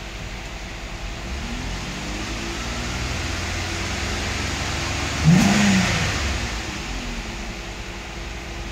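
A 2007 Pontiac G6 GT's 3.5-litre V6 is revved from idle. The revs climb steadily to about 3,000 rpm, jump sharply to a loud peak about five seconds in, then drop back to idle. It is heard from inside the cabin.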